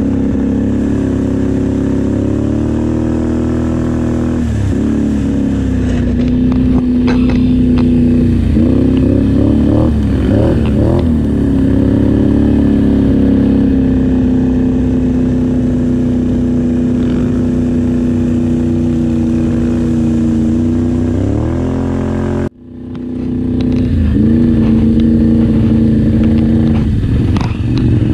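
ATV engine running at speed through shallow river water. Its pitch dips and climbs several times as the throttle changes, with scattered knocks and splashes. The sound drops out sharply about two-thirds of the way through, then the engine revs back up.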